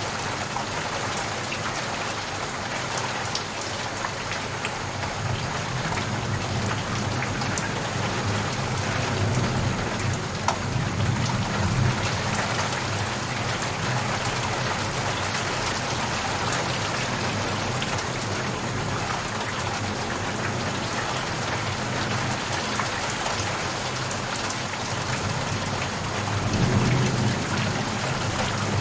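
Steady rain falling and pattering on a surface, a dense hiss flecked with individual drop ticks. Low rumbles swell up twice, about a third of the way in and near the end.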